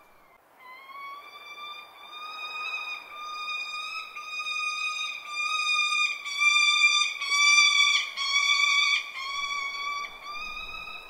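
A falcon calling in a long, near-continuous series of drawn-out, whining notes, each held at a steady high pitch. The calls grow louder toward the middle and ease off near the end.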